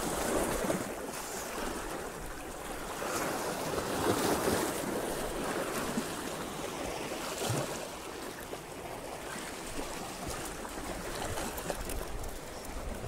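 Small sea waves washing and splashing against the rocks at the water's edge, swelling and easing several times.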